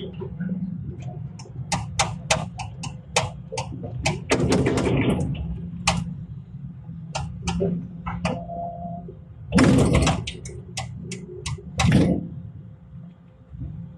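Excavator engine running steadily under a string of sharp knocks and clanks, with three louder scraping crashes about four, ten and twelve seconds in.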